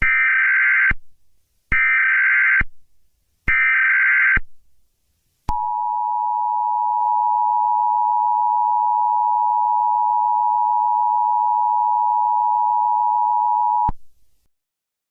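Emergency Alert System tones: three short bursts of SAME header data, each just under a second, followed by the two-tone attention signal held steady for about eight seconds before it cuts off.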